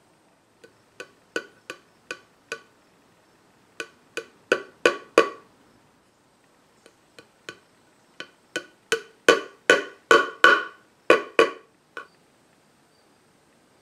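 Light hammer taps driving tiny pins through a metal nameplate into the wooden back of a clock case: about two dozen sharp taps in three quick runs, each run growing louder.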